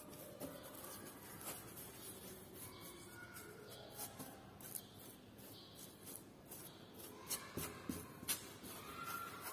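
Faint scraping and rubbing of a hand-held spatula drawn across a board in short, irregular strokes, spreading a thin coat of decorative paint.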